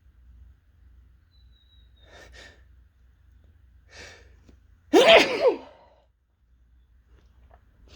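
A single loud, forceful sneeze about five seconds in, with a voiced cry in it, preceded by two faint breaths drawn in.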